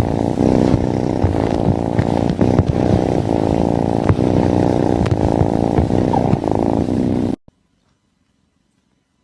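Cat purring loudly and steadily, then stopping abruptly about seven seconds in.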